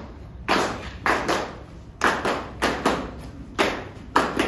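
Performers' body percussion: sharp rhythmic hits, often in pairs, about two or three a second.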